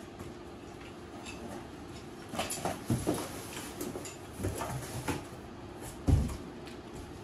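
The folded metal frame of a collapsible utility wagon knocking and clattering as it is set down and handled, with a cardboard box being shifted. A string of separate knocks in the middle, then a single dull thump, the loudest, about six seconds in.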